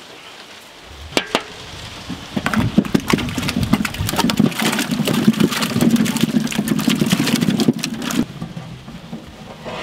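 Dozens of apples tipped from a large aluminium platter into a big aluminium pot of water, tumbling and splashing in a dense clatter that builds from about two seconds in and cuts off suddenly near the end. Two sharp knocks come about a second in.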